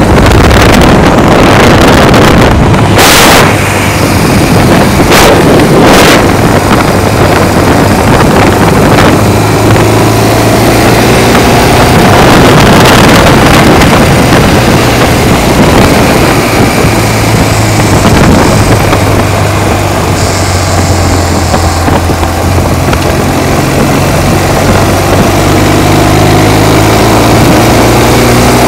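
Motorcycle-and-sidecar engine running steadily on the move, with heavy wind rushing and buffeting on the microphone; the engine pitch climbs gradually in the last few seconds as the bike speeds up.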